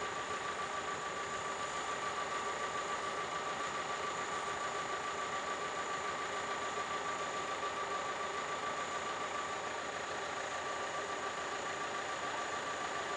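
A steady engine hum with a constant high whine, holding an even level throughout.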